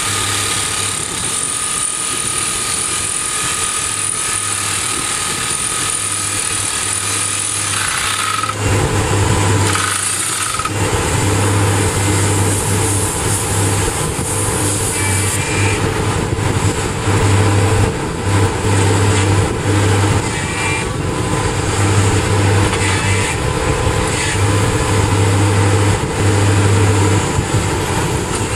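Soosan STD14E top-hammer drill rig drilling rock, its hydraulic TD45 drifter hammering rapidly on the drill steel over the running engine. The sound grows heavier about eight seconds in, drops out briefly a couple of seconds later, then runs on with a pulsing low throb.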